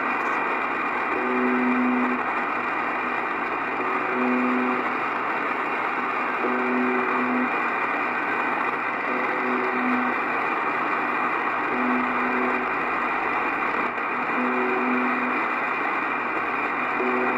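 The Russian military 'buzzer' station UVB-76 on 4625 kHz, heard in upper sideband through an Icom IC-R8500 shortwave receiver. A low, coarse buzz of about a second repeats roughly every two and a half seconds, seven times, over a steady hiss of shortwave static. A few buzzes break up briefly with fading.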